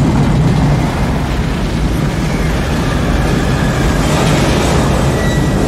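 Film sound of an F5 tornado: a loud, continuous roar of wind with a deep rumble beneath and hiss above.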